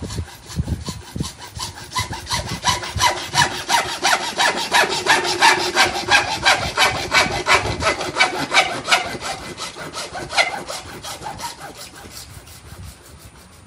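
Hacksaw cutting through white PVC drain pipe by hand in quick, even back-and-forth strokes. The strokes are loudest in the middle and fade out near the end as the cut goes through.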